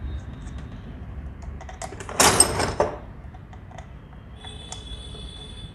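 Small metallic clicks and taps as parts are fitted into an old sewing machine head by hand, with one louder scraping slide lasting about half a second a couple of seconds in.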